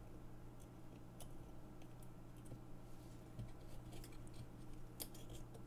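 Faint scattered clicks and taps of small plastic parts as a car-charger plug's plastic housing, circuit board and spring contact are handled and pressed back together. The clearest click comes near the end, over a steady low hum.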